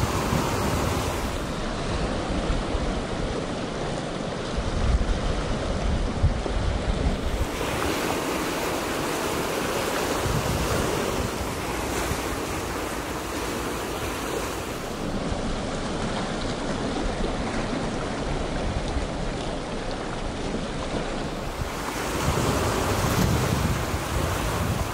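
Gusts of wind buffeting the microphone over a steady wash of water, the buffeting stronger near the end.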